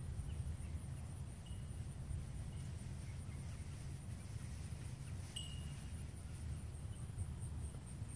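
Quiet outdoor ambience: a steady, high-pitched pulsing insect trill over a low rumble, with a few short high chirps and a faint click a little past the middle.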